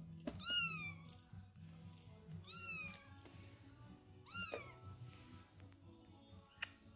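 Maine Coon kittens meowing: three short, high-pitched meows, each falling in pitch, about two seconds apart, over background music.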